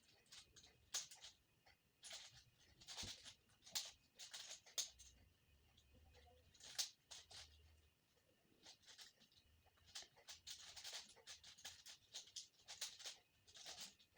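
Faint clicking and rattling of a 5x5 Rubik's cube's layers being turned, in quick clusters of clicks with short pauses between them.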